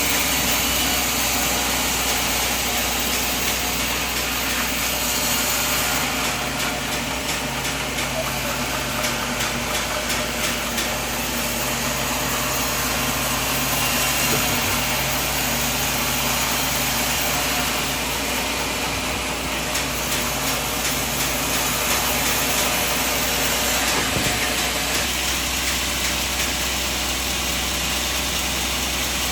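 Sawmill machinery running steadily: a constant engine drone with a low hum and a noisy, even machine sound, and a low pitched tone that comes in for a stretch in the middle.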